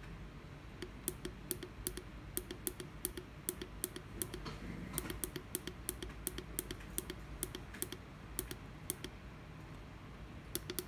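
Front-panel push buttons of a Maxwell FT200 PID temperature controller clicking as they are pressed over and over, a few sharp clicks a second, while its settings are stepped through and a value is changed.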